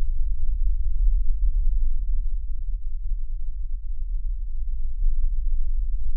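A deep, steady low rumble with nothing in the middle or high range, plus a faint thin high whine.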